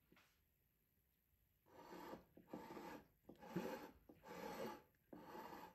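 Spatula spreading a thick cream filling over an almond sponge cake layer, with about five soft scraping strokes, each about half a second long.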